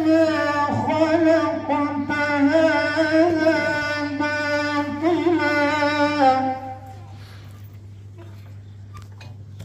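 A man's melodic Quran recitation in tajweed style, heard through a microphone and loudspeaker, drawing out long ornamented vowels for about six and a half seconds. A breath pause of about three seconds follows, and the next phrase begins at the very end. A low steady hum runs underneath.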